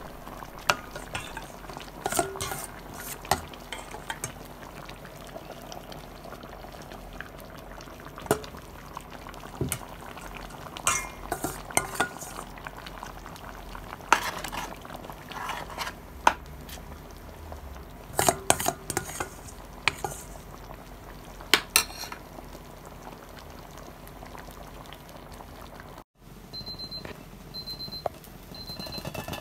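A metal ladle clinks and scrapes against a stainless steel pot while a thick stew is stirred, with sharp clinks scattered through the first twenty-odd seconds over a steady low background. Near the end there are a few short, high beeps.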